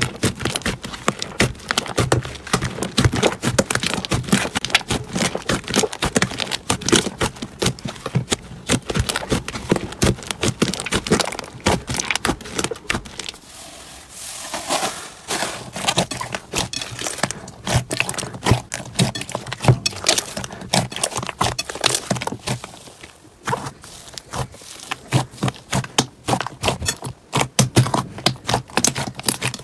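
Slime being squeezed, poked and stretched by hand, giving a dense, continuous run of small clicks and crackles, with a softer stretch about halfway through.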